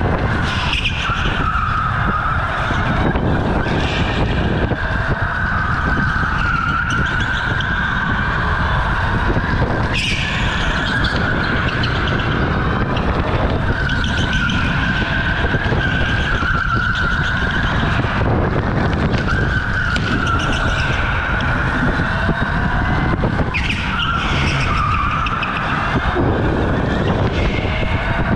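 OTL Storm electric go-kart driven hard around an indoor concrete track: the motor's whine rises and falls as it brakes and accelerates through the corners. Its tyres squeal briefly in each turn.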